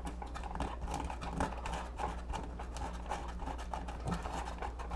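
Sandpaper rolled into a small loop, rubbed around inside a drilled hole in quick, uneven scratchy strokes to smooth off its rough edges.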